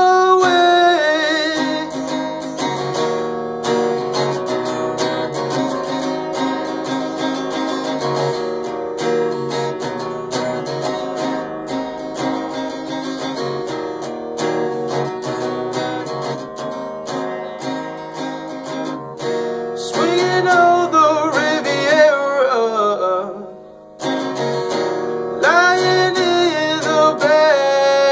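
A man singing with his own picked guitar. For most of the stretch the guitar plays alone; about two-thirds in he sings held, sliding notes, pauses briefly, and sings another line near the end.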